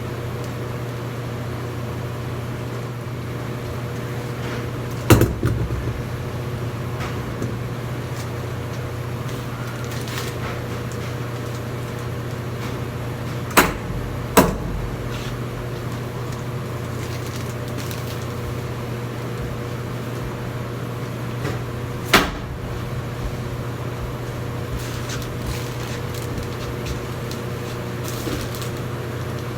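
A steady low mechanical hum with four sharp knocks: one about five seconds in, two less than a second apart a little before halfway, and one about two-thirds of the way through.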